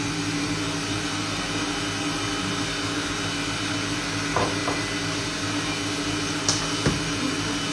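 Stand mixer running steadily with a low hum, whipping egg whites with sugar toward soft peaks. A light knock sounds about four and a half seconds in.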